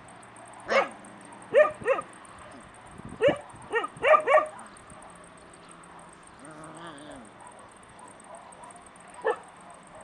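Young puppy yelping and whining in short, high cries: a quick run of about seven in the first half, a softer wavering whimper in the middle, and one more cry near the end.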